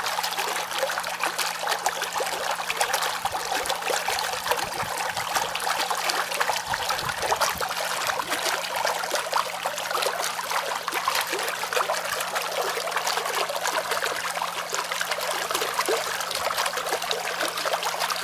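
Stream water flowing and splashing in a steady, dense rush of small gurgles, cutting off suddenly at the end.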